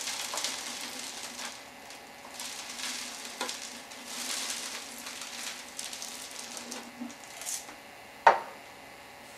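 Birdseed poured from a soup can into a cut-open 2-liter plastic bottle: a rustling hiss of seed that comes in several swells. A single sharp knock comes about eight seconds in.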